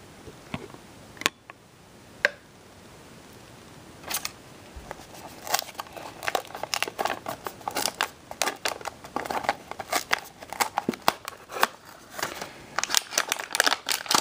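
Small cardboard blind box being handled and opened by hand: a few scattered clicks at first, then from about four seconds in a quick, uneven run of cardboard clicks, scrapes and crackles.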